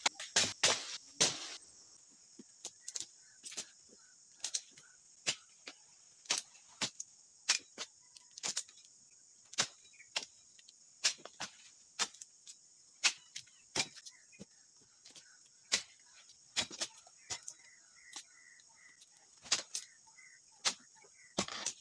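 A dodos (long-poled palm chisel) chopping into the frond bases of a low oil palm: sharp strikes, roughly one a second. Under them is a steady high insect drone that starts about two seconds in.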